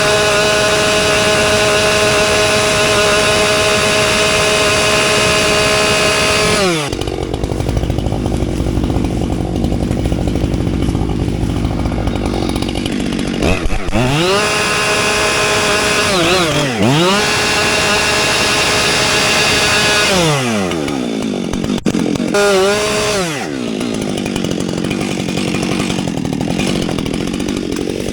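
Two-stroke chainsaw running at full throttle for about six seconds, then dropping off. It is revved up and down a few times, with one short blip, and left idling near the end.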